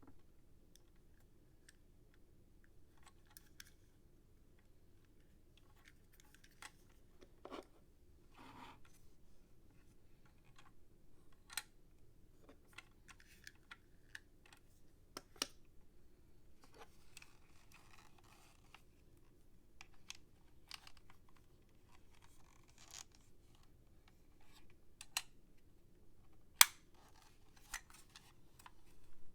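Faint, scattered clicks, taps and short rustles of packaging and a plastic toy being handled, with one sharper click near the end.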